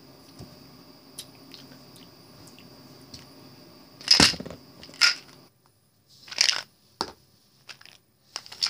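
A plastic pill bottle being flipped and clattering down onto a hardcover book, a string of sharp knocks and rattles beginning about four seconds in; before that only a low steady room hum.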